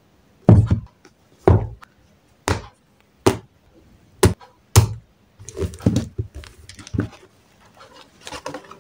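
Books and stationery set down one at a time on a cloth-covered desk: about six separate thuds and taps over the first five seconds, then a cluster of softer knocks and handling noise as a book is picked up.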